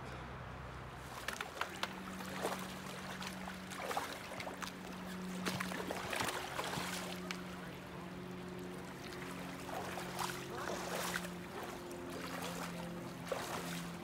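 Shallow river water sloshing and splashing around waders as people wade through it, with irregular splashes throughout. A steady low hum of held tones sits underneath.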